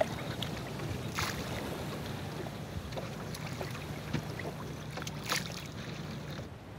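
Small boat moving over a calm sea: water splashing and sloshing against the hull over a steady low hum, with two louder splashes, about a second in and about five seconds in.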